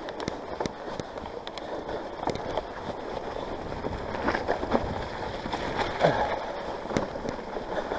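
Mountain bike riding through a flooded, muddy trail: tyres sloshing and splashing through water and mud, with frequent knocks and rattles from the bike over the rough ground.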